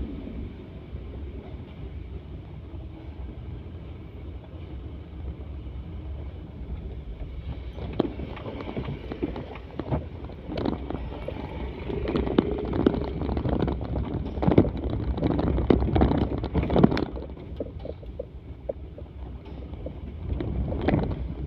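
Steady low rumble of a vehicle on the move, with wind on the microphone. From about eight seconds in there is a run of sharp knocks and rattles, loudest around fifteen to seventeen seconds, and one more knock near the end.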